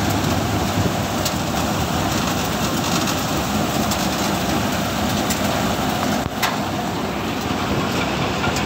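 Bharat mini combine thresher running steadily under load while threshing cumin: a loud, even mechanical noise from the machine's drum and fans.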